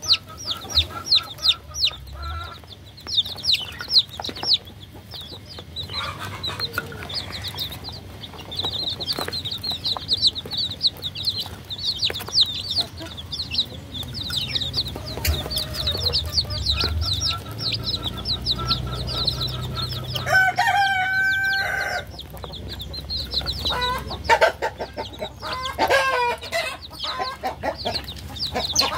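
Baby chicks peeping continuously: many short, high, falling chirps. A lower, drawn-out chicken call comes in about twenty seconds in, and again a few seconds later.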